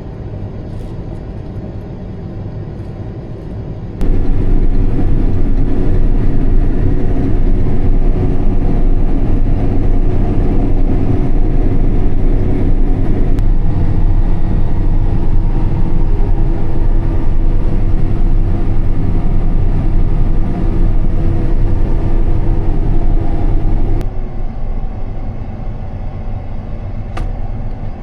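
Combine harvester's diesel engine running steadily, a heavy drone with a steady hum. It jumps much louder about four seconds in and drops back abruptly about four seconds before the end.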